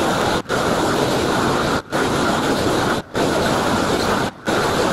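Propane roofing torch burning with a loud, steady rush as it heats the underside of a roll of granulated rubber-modified torch-down roofing to melt it onto the base layer. The rush drops away briefly about every second and a half.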